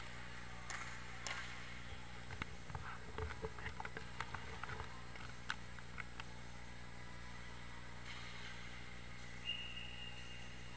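Inline hockey play at the far end of a rink: scattered sharp clacks and knocks of sticks and puck, busiest about two to five seconds in, then a short high whistle blast near the end.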